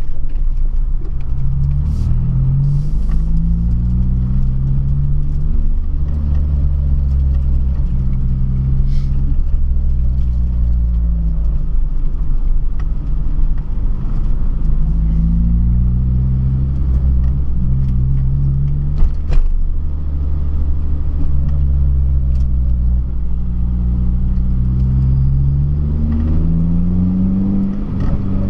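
Honda Civic Si four-cylinder engine and exhaust on the move, a loud low rumble whose pitch climbs under acceleration and falls back about three times.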